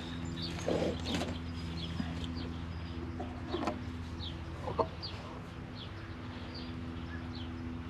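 Chickens clucking a few times, with a small bird chirping repeatedly in short falling notes, over a steady low hum.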